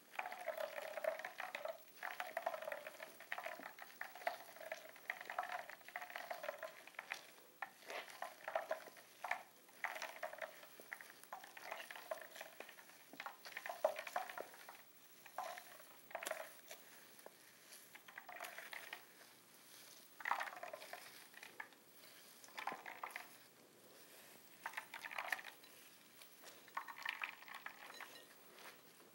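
Wet squelching and spattering as a mesh nut-milk bag full of blended almond pulp is squeezed by hand, the almond milk running out into a glass bowl of milk below. The squeezes come irregularly, one or two every second or so.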